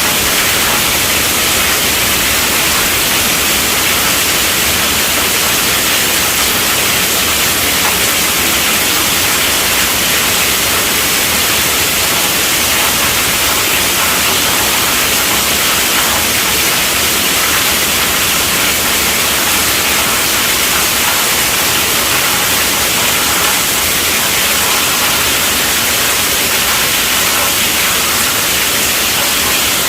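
Steady, heavy rainfall: a dense, even hiss of rain with no breaks or distinct drops standing out.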